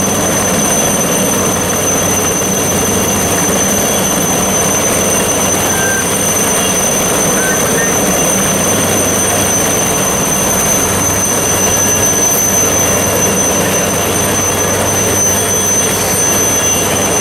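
Several HAL Chetak helicopters running together: a high, steady turbine whine over a dense rushing noise of rotors, loud and unchanging.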